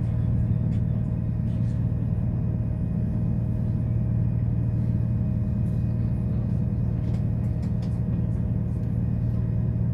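Steady low rumble and hum of a CrossCountry diesel passenger train running at speed, heard from inside the carriage, with a few faint clicks about seven seconds in.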